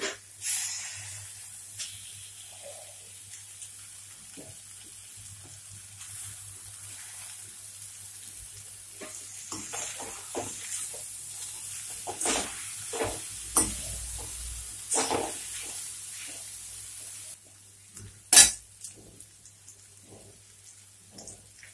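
Noodles and vegetables sizzling in oil in a metal kadhai while a slotted ladle stirs and tosses them, knocking and scraping against the pan. The sizzle falls away about three-quarters of the way through, and the loudest knock comes soon after.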